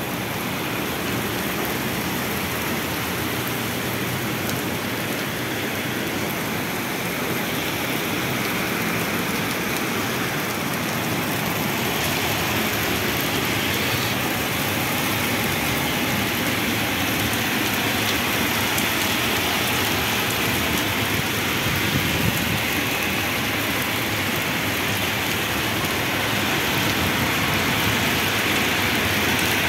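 Heavy rain falling steadily on flooded pavement, with water gushing and splashing close by.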